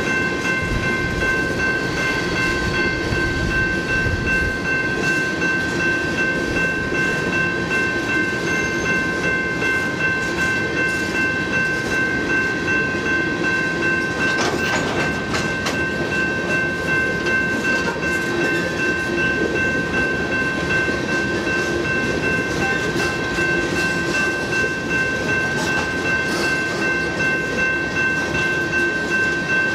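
Coal hopper cars of a long freight train rolling past, wheels rumbling and clattering on the rails, with a steady high-pitched whine over the rumble. A single louder clank comes about halfway through.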